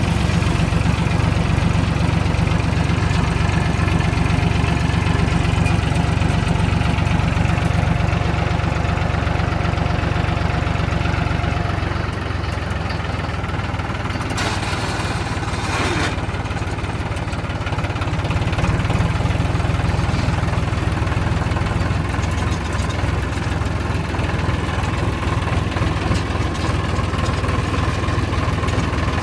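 JCB 3DX backhoe loader's diesel engine running steadily. It eases off about twelve seconds in and picks up again near eighteen seconds. A couple of short knocks come about fourteen and sixteen seconds in.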